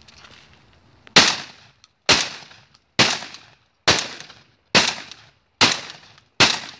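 Tactical shotgun fired seven times in quick, even succession, about one shot a second. Each shot is a sharp bang with a short echoing tail.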